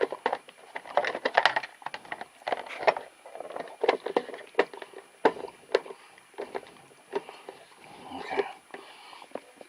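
Plastic cover and parts of a refrigerator's control-board housing being handled and fitted into place: a run of irregular clicks, knocks and rustles, with two sharp snaps a little past five seconds in.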